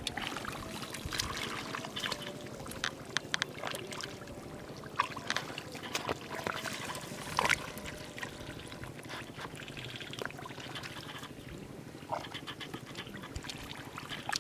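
Hands groping and scooping through shallow muddy water and soft mud in a rice paddy: irregular small splashes, squelches and drips, with a couple of louder splashes about five and seven and a half seconds in.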